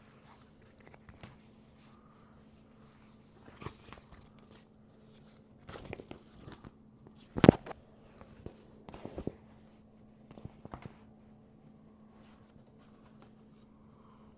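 Handling noises from setting up a field service anti-static kit: scattered light clicks and rustles, with a sharp knock about halfway through, over a faint steady hum.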